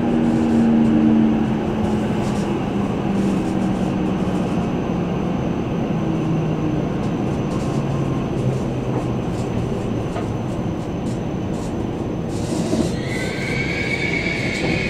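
E7-series Shinkansen heard from inside a passenger car as it slows into a station. The motor whine falls slowly in pitch over the running noise, and a high steady tone comes in about thirteen seconds in as the train draws to a stop.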